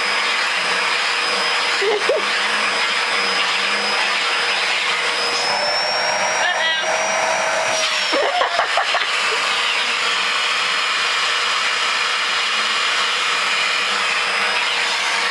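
Vacuum cleaner running steadily with a constant high whine while its brush nozzle is worked over a cat's fur; about five seconds in the whine rises in pitch for a couple of seconds, then settles back.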